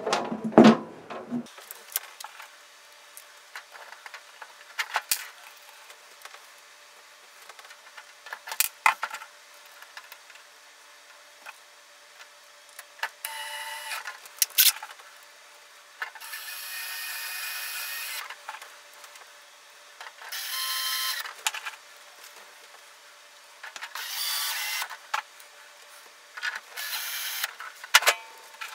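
Cordless drill/driver whirring in about five short bursts, driving in the screws that fasten the metal electronics cover on a Creality CR-10S Pro's base. Before the driver starts, scattered clicks and knocks from handling the metal panel and screws.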